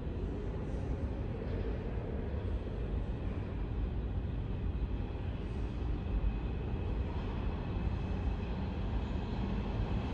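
Subway train rumble, growing slowly louder toward the end, with a faint high whine joining about halfway through.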